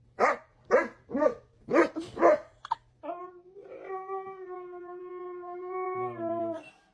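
A dog gives five short barks in quick succession, then a dog holds one long steady howl for about three and a half seconds that drops in pitch just before it ends.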